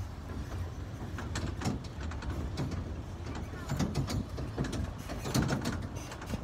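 Small tourist road train on the move: a steady low rumble with bursts of rattling and knocking from its body, strongest about four and five seconds in.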